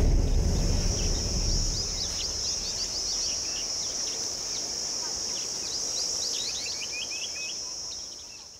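Rural ambience of a steady high-pitched insect drone with many short, quick bird chirps over it, above a low rumble; it all fades near the end.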